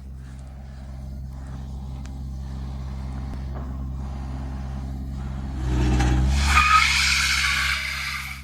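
Heavy vehicle engine running steadily under strain during a tug of war. About two-thirds of the way in, tyres start squealing and scrubbing on the ground for two to three seconds as the wheels spin, then die away near the end.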